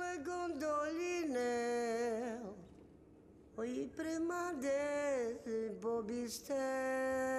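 A lone voice singing a slow, melismatic song, two long drawn-out phrases with a brief pause about three seconds in.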